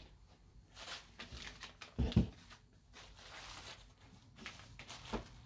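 Handling noise as small parts and pieces are moved and set down on a table: scattered light knocks, a couple of heavier thumps about two seconds in, another near the end, and some rustling.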